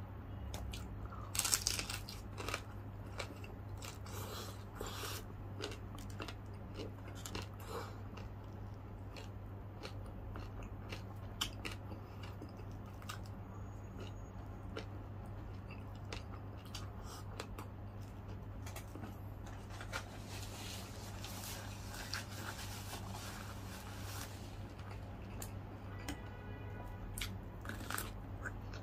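Close-up crunching and chewing of crispy deep-fried pork belly (lechon kawali), with a loud crunchy bite about a second and a half in and scattered crunches and mouth sounds after it. A steady low hum runs underneath.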